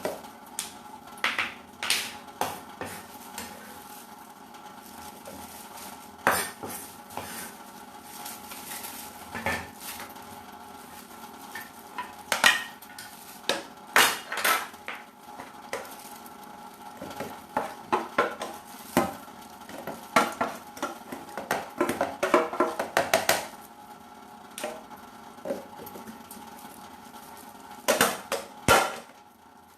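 Kitchen utensils and dishes clinking and knocking together in irregular handling clicks. The clicks come thickest past the middle, with a few loud knocks near the end.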